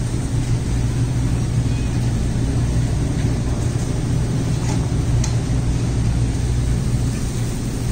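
Steady low hum of supermarket refrigeration, with two faint ticks about five seconds in.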